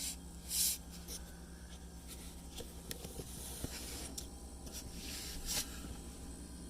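A few brief scraping and rustling handling sounds, the loudest two near the start, over the steady low hum of the GE refrigerator's compressor, which is still running even though the fridge is not cooling.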